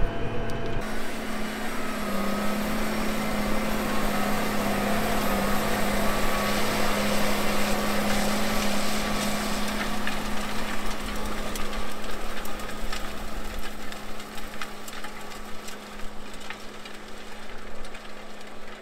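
Case IH 245 tractor running under load while pulling a tillage disc, heard from outside: a steady engine hum with broad rumble, scattered clicks from about halfway, and the sound growing fainter over the last few seconds as the tractor moves away.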